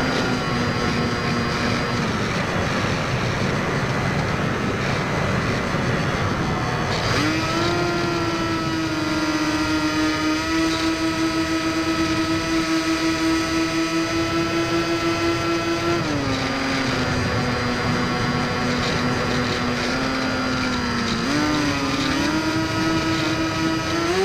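Electric motor and propeller of a Firebird Stratos RC plane whining over rushing air, as heard from its onboard camera. The pitch steps up about seven seconds in as the motor speeds up, drops back about sixteen seconds in, and climbs again near the end.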